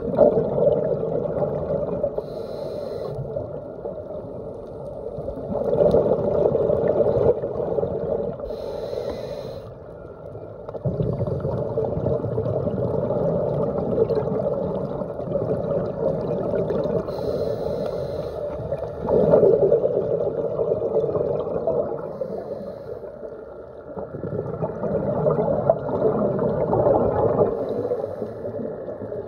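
Muffled underwater sound picked up through a phone's waterproof dive case: a scuba diver's regulator breathing, with rushing surges of exhaled bubbles every several seconds and short hisses between them.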